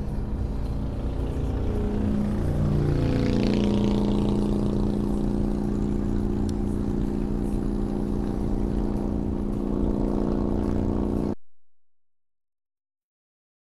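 Loud motorcycle exhaust going past, heard from inside a car over road noise. Its note shifts in pitch as it passes about two to three seconds in, then holds as a steady drone while the bike pulls ahead. The sound cuts off abruptly about eleven seconds in.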